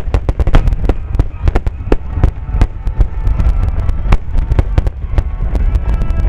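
Finale barrage of aerial fireworks shells bursting in rapid succession: many sharp bangs a second, irregularly spaced, over a continuous low rumble.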